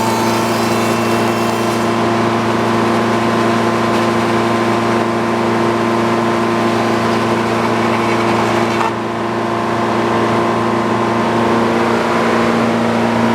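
Sawmill running with its engine droning steadily under load while the blade cuts through a board. The higher hiss of the cut weakens about two seconds in and drops again, with a brief dip in loudness, about nine seconds in.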